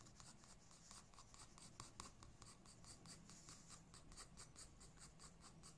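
Faint scratching of a 2B graphite pencil on drawing paper, making quick, short, fine strokes at about four a second to build up fur texture.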